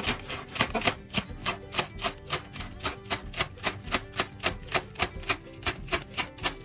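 Chef's knife chopping onion stalks on a wooden cutting board: quick, even knocks of the blade on the board, about four a second.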